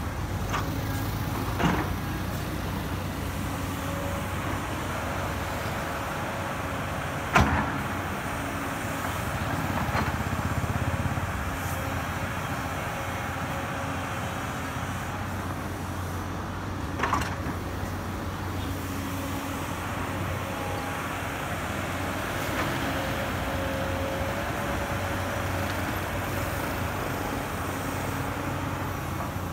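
Tata Hitachi hydraulic excavator working: a steady diesel engine drone with hydraulic whines that come and go as the boom and bucket move under load. A few sharp knocks stand out, the loudest about seven seconds in.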